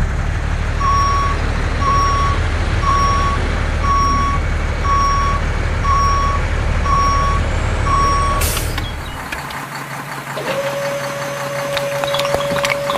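Vehicle reversing alarm beeping about once a second, eight times, over a steady low motor hum. It ends with a click, the hum fades, and a steady whine starts about ten seconds in.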